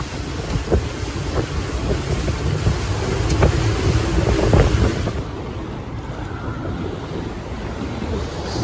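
Wind buffeting the microphone over the low rumble of a boat under way on the sea, with scattered knocks. The high hiss drops away about five seconds in.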